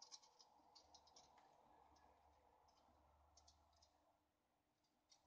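Near silence, with faint scattered tiny clicks, mostly in the first second and again briefly about three and a half seconds in.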